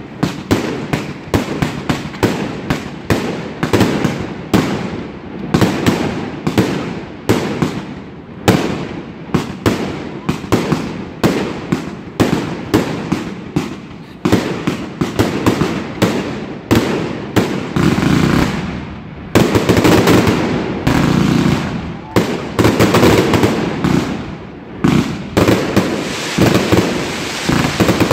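Triplex TXB869 fireworks cake, a 600-shot cake of 1.2-inch tubes, firing a fast, unbroken string of shots and bursts overhead, several a second. From about two-thirds of the way through, the shots come thicker and run together into almost continuous firing.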